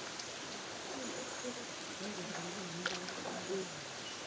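Steady rush of flowing water in a rocky hot-spring stream. A faint voice murmurs about halfway through, and a single click comes shortly after.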